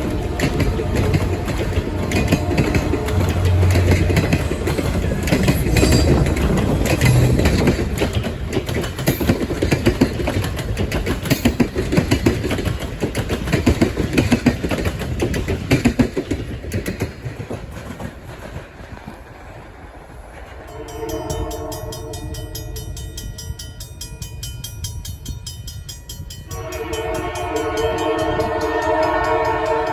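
Canadian Pacific Holiday Train rolling past, its wheels clattering over the rail joints. The sound then dies down, and a locomotive air horn sounds a long chord from about 21 seconds in, then a louder long blast near the end.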